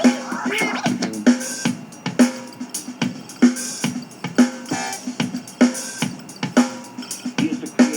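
Drum-driven music played back through a Soundcore Pyro Mini Bluetooth speaker as a sound test, with a steady kick-drum beat about twice a second.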